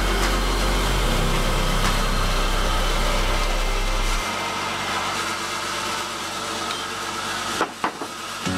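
Sawmill machinery running steadily, with background music of held low notes under it. The sound drops a little about four seconds in, and a few sharp clicks come near the end.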